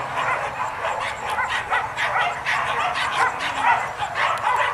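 A pack of leashed pig-hunting dogs barking and yelping together, many short high yelps overlapping in an unbroken chorus.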